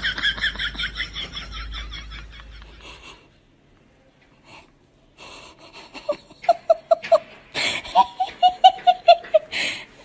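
People laughing. For about three seconds there is rapid, high-pitched, wheezy laughter. After a pause, from about six seconds in, comes a lower 'ha-ha-ha' laugh in quick, even beats.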